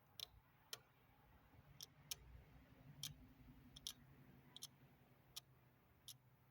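Faint, irregularly spaced sharp clicks and taps, about ten of them, from small plastic model-kit parts and tools being handled on a work table, over a low steady hum.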